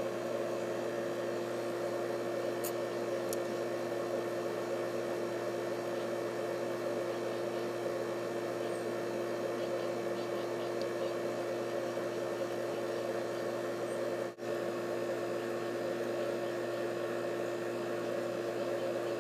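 Pool pump motor running with a steady hum, pushing water through the plumbing while the chlorine generator waits to sense flow. The sound drops out for an instant about two-thirds through.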